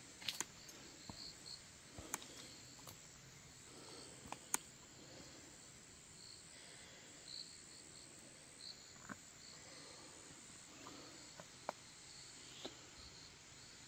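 Quiet hillside ambience: faint insect chirps in short, repeated high notes over a steady soft rush of water falling down the side of a dam, with a few scattered light clicks.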